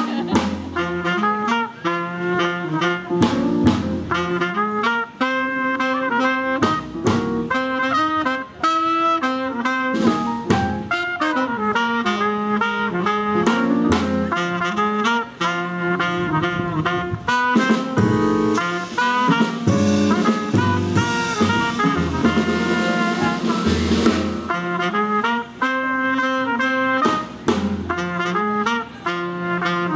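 Live small-group jazz: trumpet and tenor saxophone playing a melody together over piano, upright bass and a drum kit, with a stretch of heavier cymbal wash a little past the middle.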